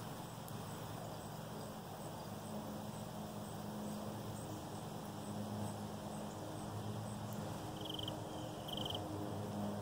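Outdoor ambience: a distant engine drones steadily, growing louder towards the end, while an insect chirps faintly about three times a second. Two short high chirps come near the end.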